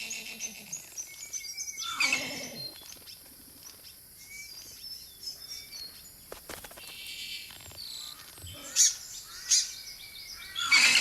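Birds chirping and calling in forest, with a louder harsh, falling call about two seconds in and a few loud sharp calls near the end.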